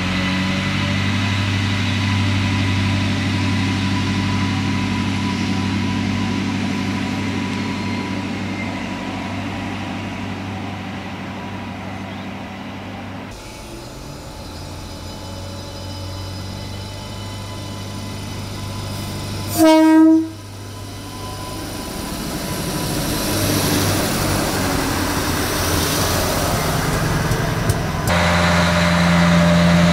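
Adelaide Metro diesel railcars. First a steady low engine hum from a railcar at the platform. About twenty seconds in, an approaching railcar gives one short horn blast, the loudest sound, and its running noise then grows louder as it draws near.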